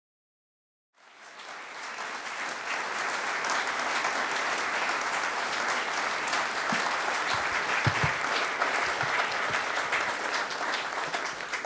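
Audience applauding, a dense steady clapping that fades in about a second in, with a few dull low thumps in the middle.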